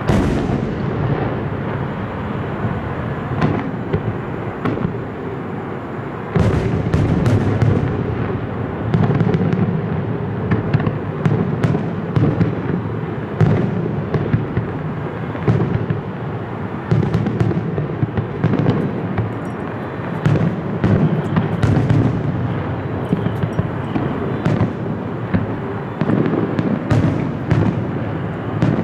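Fireworks display: many shell bursts going off in quick succession, the booms merging into a continuous rumble with sharp cracks on top, getting louder and denser about six seconds in.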